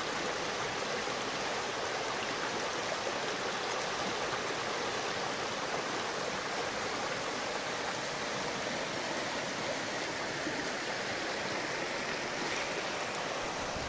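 Steady rushing of running water from the Garadna, a mountain brook running high, and the spring beside it.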